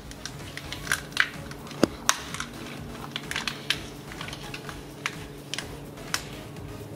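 Irregular light plastic clicks and rattles of a wiring harness and its retaining clips being worked loose by hand, over a faint steady hum.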